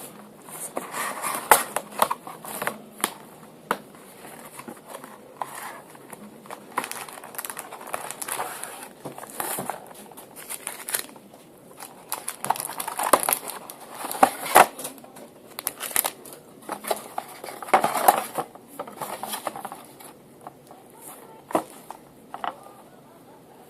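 Plastic shrink wrap and cardboard packaging crinkling, tearing and rustling in irregular bursts of crackles and clicks as a sealed trading-card hobby box is unwrapped and opened.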